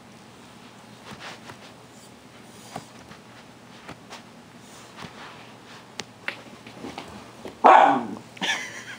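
A few faint ticks and taps, then near the end a dog gives a loud short bark that falls in pitch, followed quickly by a second, higher-pitched bark.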